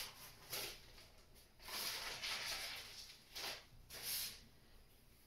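Baking paper rustling in several short bursts as a sheet of ready-rolled pastry is unrolled and peeled off it.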